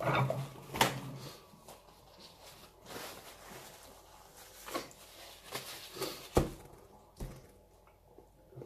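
A man wiping and sniffling into a tissue after eating very hot chili: paper rustling and sniffs, with a short throaty sound at the start and two light knocks on the table near the end.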